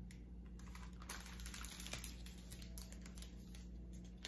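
A hardcover picture book being handled and turned around: a quick run of small clicks and paper rustles from the cover and pages, over a faint steady hum.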